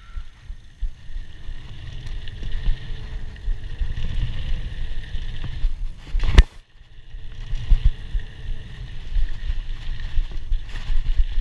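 Scott Scale hardtail mountain bike rolling fast over a dirt track: steady tyre rumble and bike rattle picked up by a chest-mounted camera, with one loud knock about six seconds in.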